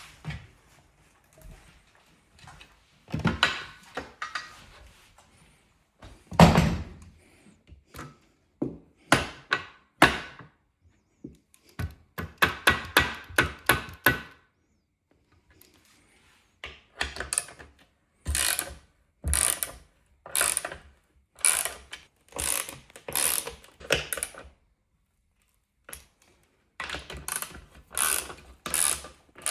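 Hand ratchet working in runs of short clicking strokes, about one stroke a second in the longer runs, as screws are driven in for the wall mount, with a heavier knock about six seconds in.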